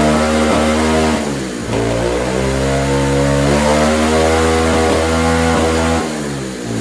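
SSR 125 pit bike's single-cylinder four-stroke engine running and revving up and down. The pitch drops off a little over a second in, climbs again and holds, then eases down near the end.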